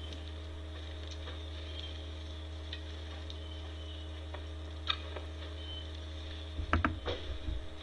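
Steady low electrical hum with scattered faint clicks. About six and a half seconds in comes a short cluster of louder knocks and rustling.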